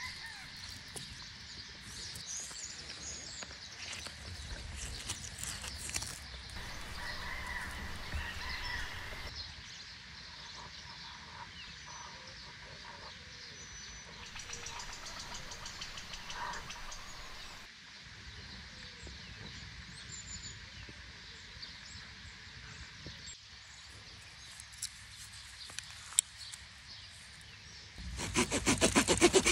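Outdoor ambience with faint bird chirps. Near the end a multitool's small serrated saw blade starts cutting through a branch, a loud rapid rasping of quick strokes.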